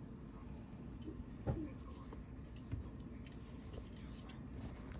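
Faint handling noises: a few light clicks and taps, scattered a second or so apart, as the clay pot of yogurt sitting in a towel-lined kadai is covered over.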